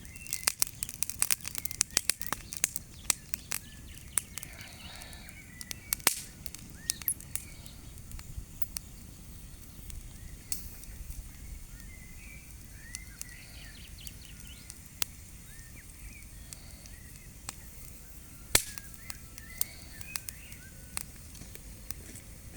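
Bonfire of leaves and branches crackling, with sharp pops that come thick in the first few seconds and then more sparsely. Birds chirp briefly several times in between.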